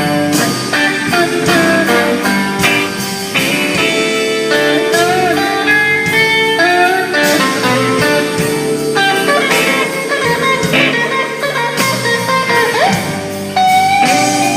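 Blues guitar playing, a dense run of notes with several bent notes sliding up in pitch.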